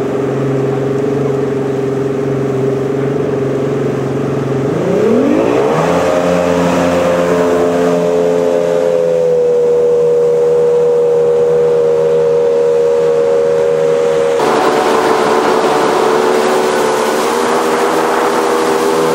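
Jet boat's 200 hp Mercury Optimax inboard jet engine running steadily, then revving up in a rising whine about five seconds in and holding at the higher speed. About two-thirds of the way through, the sound changes abruptly to an on-board recording, with a loud rush of wind and water over the engine.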